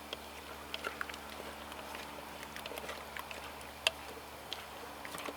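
Wood campfire crackling, with scattered small pops and one sharper pop near the end, over a faint steady hiss.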